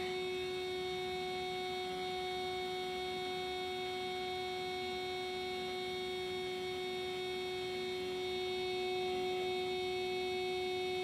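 Car horn blaring in one steady, unbroken tone, held on because it has been wired straight to the battery.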